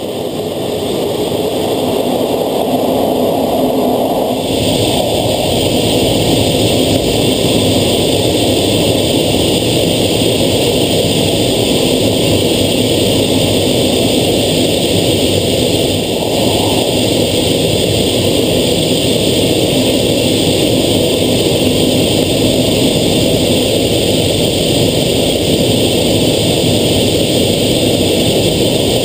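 Steady jet engine and rushing-air noise inside an F/A-18 Hornet's cockpit in flight, swelling up over the first second or two and then holding even.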